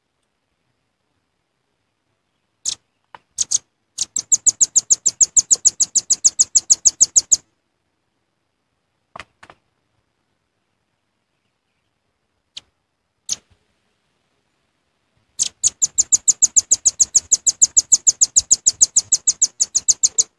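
Velvet-fronted nuthatch calling: a few sharp high single notes, then a fast trill of about eight notes a second lasting some three seconds, a few more single notes, and a second, longer trill of about five seconds near the end.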